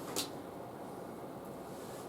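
A single short, sharp click about a quarter second in, over a steady low hiss.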